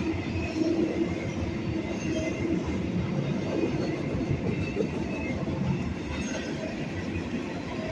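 Long freight train rolling past: a steady rumble of wheels on rail, with faint wheel squeals now and then.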